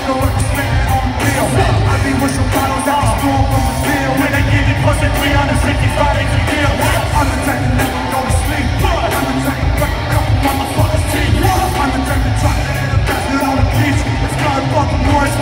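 A live rock band playing loud, with drums and electric guitar, and a singer yelling lyrics into the microphone over it, heard from within the crowd.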